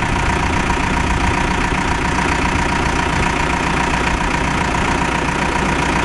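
Caterpillar 420E backhoe loader's diesel engine idling steadily, with a steady high-pitched tone alongside.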